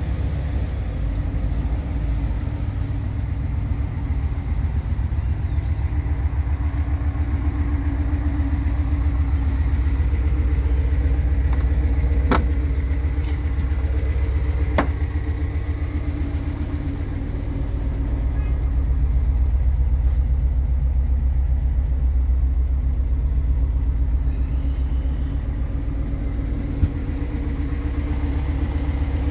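Volkswagen bus engine idling steadily, a low pulsing rumble, with two sharp clicks near the middle.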